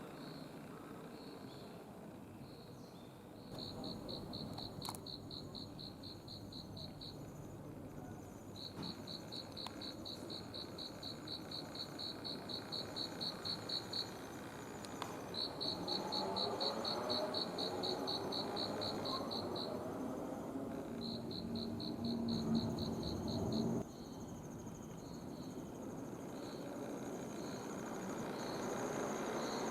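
Crickets chirping in evenly pulsed high trills that last a few seconds each, with short single chirps in between. A low rumble with a faint steady hum builds in the background through the middle and cuts off abruptly about three-quarters of the way through.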